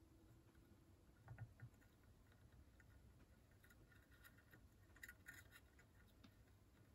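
Near silence with a few faint small clicks and taps, a brief cluster about a second in and more around the middle.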